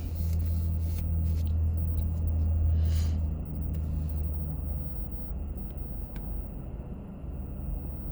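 Car engine idling: a steady low hum, louder for about the first three and a half seconds and then easing off. A few short rustles and clicks sound over it.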